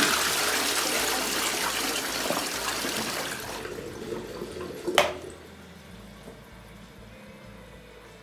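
Toilet flushing: a sudden rush of water that runs loud for about three and a half seconds and then dies away, churning the dish soap in the bowl into foam. A single sharp click sounds about five seconds in.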